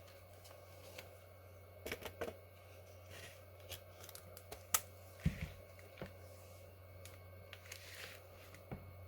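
Scattered small clicks, taps and knocks of hands and tools handling laptop parts, the loudest knocks near the middle, over a steady low hum.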